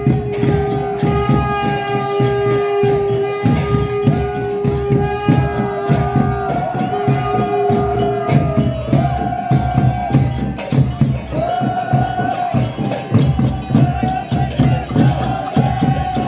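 Music with fast, dense hand percussion and a melody line that bends up and down. A steady held note under it drops out about nine seconds in.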